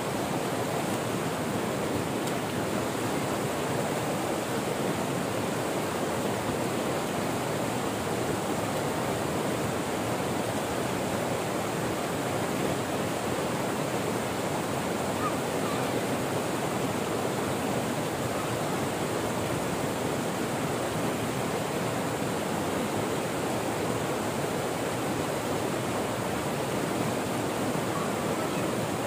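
Steady rush of flowing water, an even noise without breaks.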